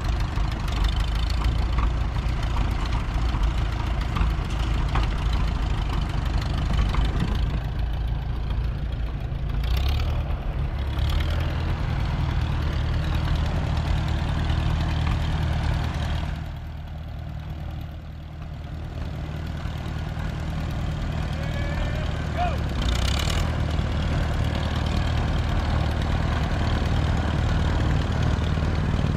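Antique Farmall row-crop tractor engine running steadily as the tractor manoeuvres around barrels. The sound drops for a couple of seconds a little past halfway, then comes back up.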